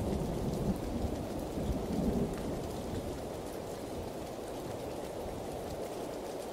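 Steady rain falling, with the low rumble of thunder dying away over the first two or three seconds.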